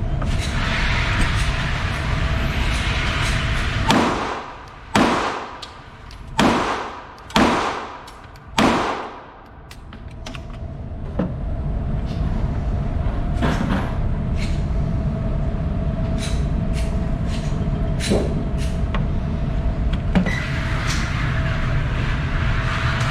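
Five 9mm pistol shots fired about a second apart, each a sharp loud crack with a short ring-out, followed by a few fainter sharp reports spread over the next dozen seconds, over a steady background rush.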